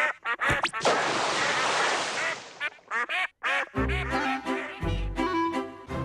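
Cartoon ducks quacking in quick bursts, with a long rushing noise about a second in and music underneath.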